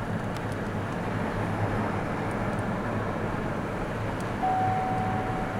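Steady road and engine noise inside a moving car. A steady high tone joins near the end.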